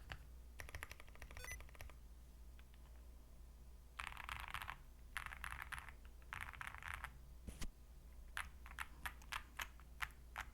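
Typing on an Akko SPR67 mechanical keyboard with Wuque Studios Morandi linear switches, an FR4 plate and PBT keycaps. A short flurry of keystrokes comes early, then three dense bursts of fast typing, then single key presses one after another near the end.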